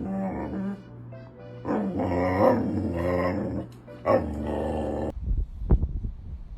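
A dog vocalising in three drawn-out calls that waver in pitch, with music behind. About five seconds in, it cuts to irregular low thumps and rumbling.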